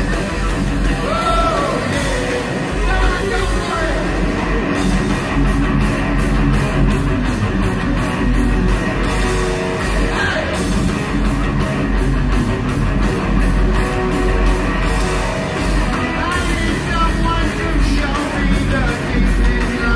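Loud live heavy metal band, with distorted electric guitar, bass and drums, heard through an audience recording in an arena. A singer's voice carries over the band at the start and again near the end, and the middle is mostly instrumental, with fast, regular drum hits.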